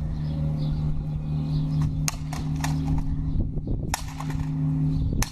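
Hurley striking the tarmac and hard plastic pieces of a smashed Nerf gun: sharp clacks, three in quick succession about two seconds in, another about four seconds in and one near the end, over a steady low hum.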